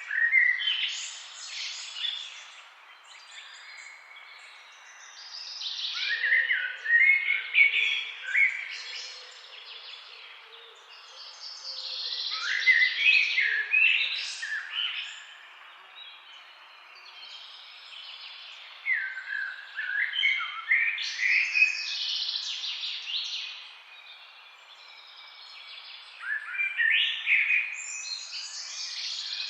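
Songbird song in the forest: complex, quick phrases of chirps and whistled notes, each lasting two to three seconds and coming about every six to seven seconds, over a faint steady rushing of a flowing river.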